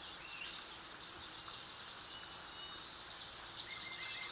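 Small birds chirping over a steady outdoor background hiss, the short high chirps coming more often in the second half.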